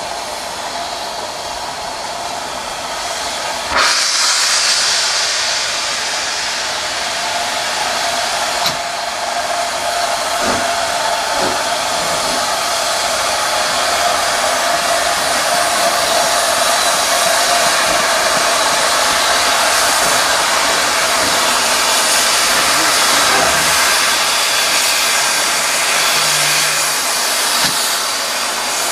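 Steam hissing steadily from Southern Railway N15 'King Arthur' class locomotive No. 777 as it moves slowly along the platform, growing louder suddenly about four seconds in. A steady tone sounds under the hiss through most of it.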